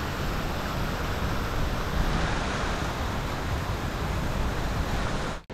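Steady outdoor city-street background noise, an even rushing haze with no distinct events, cut off suddenly near the end.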